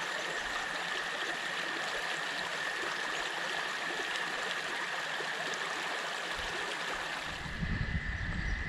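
Small waterfall on a rocky creek, its water rushing steadily, with a faint steady high tone beneath. About seven seconds in, the sound changes and an irregular low rumble with thumps joins in.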